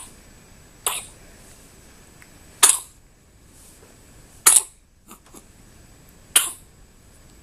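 A run of short, sharp sneezes, four of them about two seconds apart.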